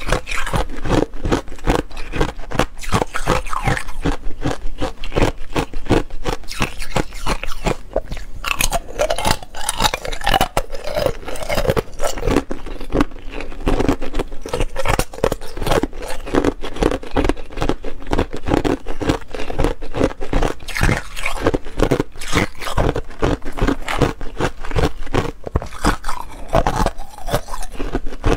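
Close-miked crunching of thin, hollow ice being bitten and chewed: a dense, continuous run of crisp cracks and crunches.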